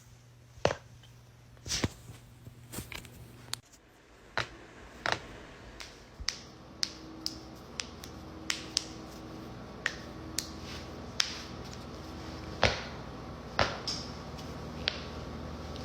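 Human joints cracking: a run of short, sharp pops and clicks, about twenty of them at uneven spacing, over a faint steady hum.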